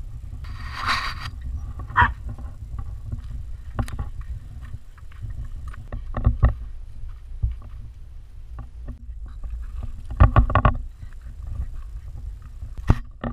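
Steady low rumble from a GoPro HERO3 in its housing being jostled along at dog height. Scattered sharp clicks and knocks run over it, with a cluster of them about ten seconds in, from the corgis' paws, leashes and tags moving right next to the camera.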